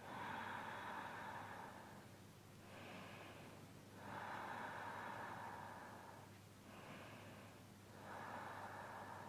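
Faint, slow, audible breathing from a person holding a yoga pose: about five soft breaths in and out, alternating longer and shorter, with brief pauses between them.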